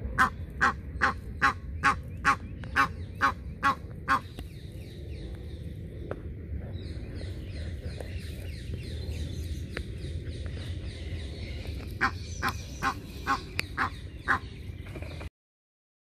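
Egyptian goose giving a run of about ten harsh honks, two to three a second, then after a pause another run of about six. These are the scolding calls of a parent goose guarding its goslings.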